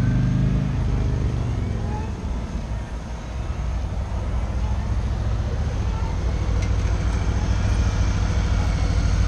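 Motorcycles riding past at low speed: a steady low rumble that dips about two seconds in and then builds again.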